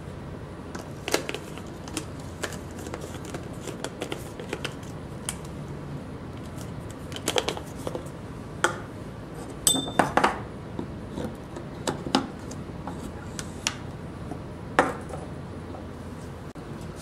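Scattered light clicks and knocks of the metal and plastic parts of a Leverpresso manual lever espresso maker being handled, assembled and set down on a wooden table, with a brief metallic ping about ten seconds in.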